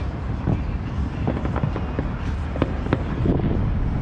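Fireworks and firecrackers going off in many irregular sharp pops and bangs of varying loudness, over a continuous low rumble.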